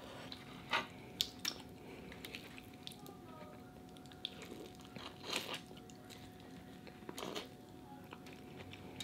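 A person biting and chewing seafood-boil food, with scattered small crunches and wet mouth clicks, over a faint steady hum.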